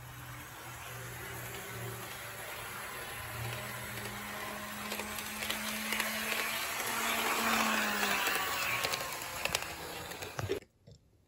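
HO-gauge model KiHa 110-200 railcar running on sectional track: the small electric motor hums steadily with a faint whine, growing louder as it approaches, with light clicks from the wheels over rail joints. The sound stops suddenly near the end.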